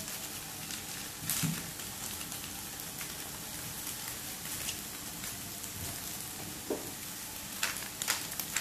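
Tofu and egg sizzling steadily in a wok, with a few light clicks about a second in and again near the end.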